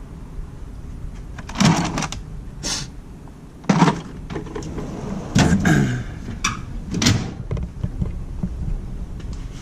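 Metal drawers of a Snap-on Epiq tool chest sliding open and shut, with several knocks as they close or hit their stops.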